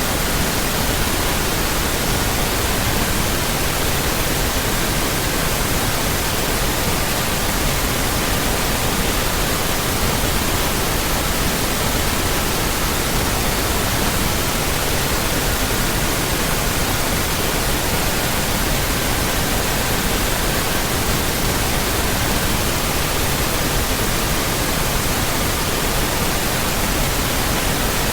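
Steady, even pink noise with faint pure tones near 1200, 1320, 1440 and 1555 Hz laid over it. The tones take turns, each one held for a few seconds before another replaces it.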